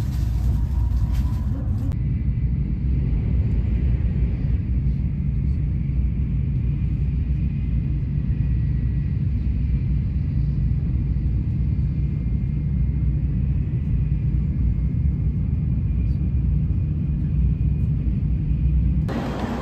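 Steady low rumble of a Shinkansen bullet train running at speed, heard from inside the passenger car, with a faint steady whine above it.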